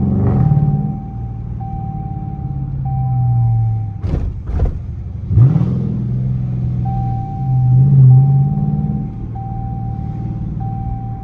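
Straight-piped exhaust of a Dodge Charger R/T's HEMI V8, heard from inside the cabin, rumbling low and rising and falling in pitch as the car pulls away at low speed. A few sharp cracks sound between about four and five and a half seconds in.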